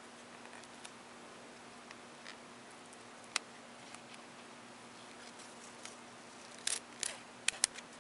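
Scattered small clicks and crackles of a book, paper and cloth tape being handled during a repair. There is one sharp click about three and a half seconds in and a quick cluster of sharper clicks near the end.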